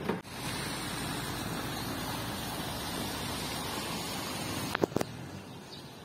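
Steady rushing noise, with a few sharp clicks about five seconds in, after which it drops a little.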